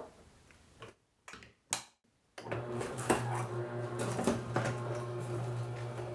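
A few brief knocks, then from about two and a half seconds in a Kuvings Auto 10 Plus slow juicer runs with a steady low motor hum while its auger crushes produce, with scattered clicks and crackles.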